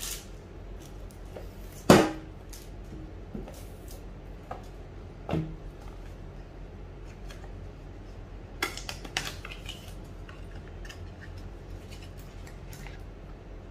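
Handling noise from opening a small cardboard product box: a few scattered knocks and clicks as the box is set on a glass tabletop and its flap is opened, the loudest about two seconds in.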